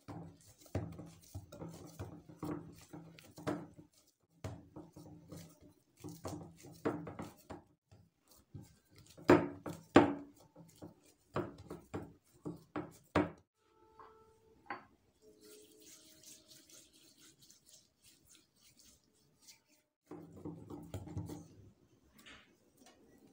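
Dough being kneaded by hand in a glass bowl: a run of irregular soft thumps and knocks as the dough is pressed and the bowl bumps on the countertop. It goes quiet for several seconds after the middle and picks up again near the end.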